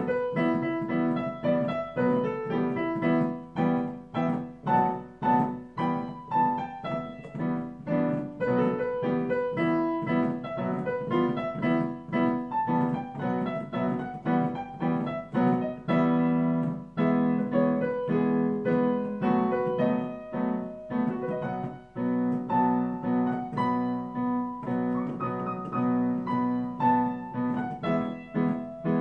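Solo piano improvisation, played with both hands: steady held low chords under a quicker melody of separate notes, taking the form of a rondo.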